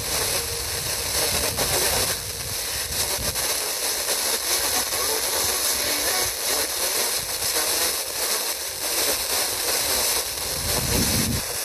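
FM radio hiss from a TEF6686 receiver tuned to a weak, noisy signal during a band scan, with faint program audio barely showing under the noise.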